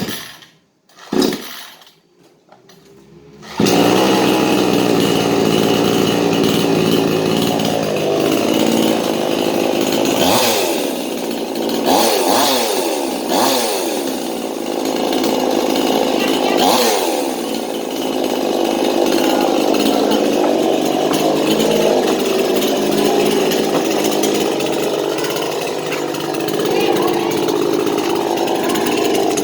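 New J.L.D. two-stroke gasoline chainsaw on its first test run: two short bursts at the start, then it starts about three and a half seconds in and runs loud and steady. It is revved up and down several times between about ten and seventeen seconds in.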